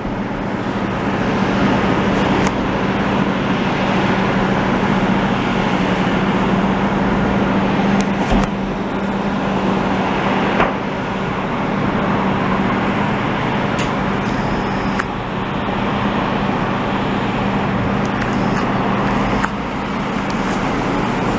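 Heavy diesel machinery running steadily: a loader-mounted snowblower casting snow, with dump trucks. A constant low hum under a dense wash of engine and road noise, with a few short clicks.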